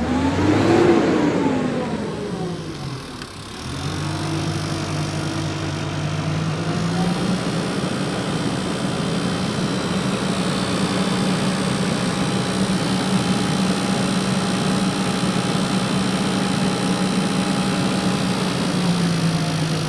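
Car engine revved once, the pitch rising and then falling back over about three seconds, then held at a steady, slightly raised speed, easing off a little near the end.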